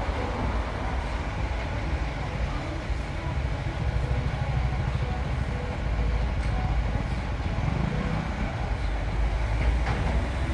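Recycling truck's diesel engine running with a steady low rumble.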